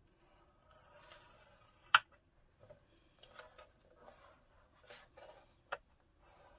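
A scoring tool drawn along a strip of paper in the grooves of a scoring board: faint scratchy rubbing strokes, with a sharp click about two seconds in and another near the end.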